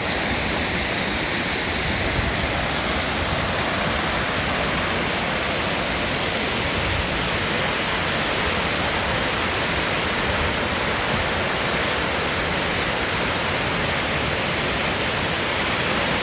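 Düden Waterfall's water falling and rushing in a steady, dense roar of noise that holds even throughout.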